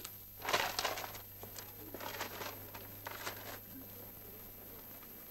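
Paper rustling as the pages of a thick ledger are turned by hand: a loud flurry about half a second in, then a few shorter rustles.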